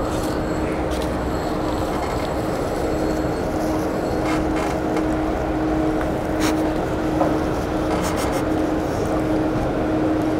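Steady drone of street traffic with a continuous low engine hum, broken by a few short crackles about halfway through and near the end.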